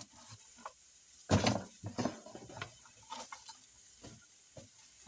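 Handfuls of chopped raw cabbage rustling and crackling as they are scooped off a wooden cutting board and dropped into a stainless steel pot. One louder knock comes about a second and a half in.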